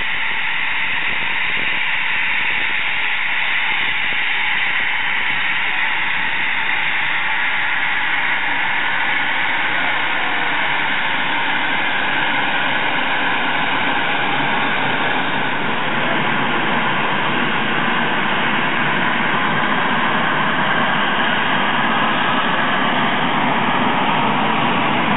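Eurofighter Typhoon's twin EJ200 turbofan jet engines running at low power as the fighter taxis: a steady, loud jet hiss and whine, with the deeper part of the sound growing a little stronger in the second half.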